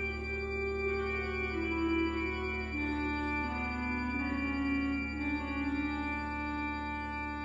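Slow organ music: a melody in long held notes over sustained chords and a steady low drone.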